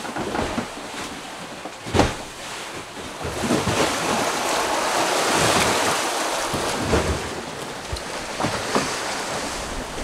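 Sea water rushing and splashing past the hull of a catamaran under sail, with wind on the microphone; the wash swells in the middle. A sharp thump about two seconds in.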